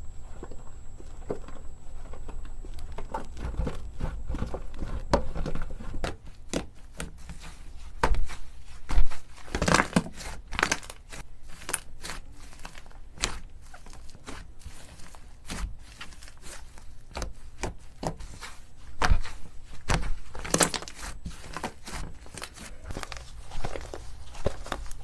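Slime being squeezed, poked and stretched by hand, making irregular wet crackling, popping and crunching clicks. The clicks are softer for the first few seconds, then become dense and sharp.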